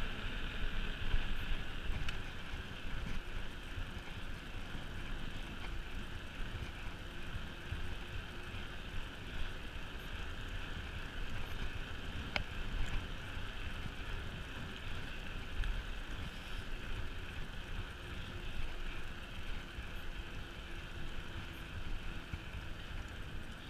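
Mountain bike rolling along tarmac, with a steady rush of wind on the microphone and the hiss of the tyres on the road. A single sharp click sounds about halfway through.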